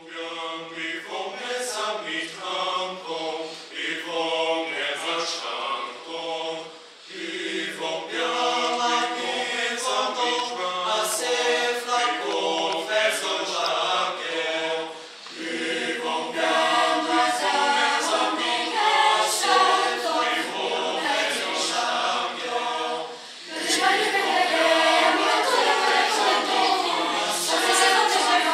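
Children's choir singing unaccompanied, in sung phrases with short breaks between them; the singing gets louder about three-quarters of the way through.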